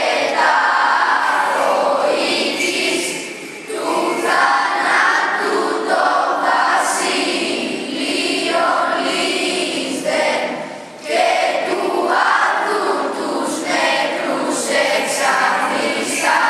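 Children's choir, with a few adult voices, singing a Greek Orthodox Good Friday Epitaphios hymn unaccompanied, in long phrases with short pauses for breath about three and a half and eleven seconds in.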